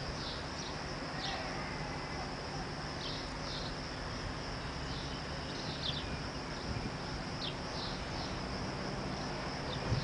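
Crickets chirping steadily in a high band, with short high falling chirps every second or so, over a low, even background rumble.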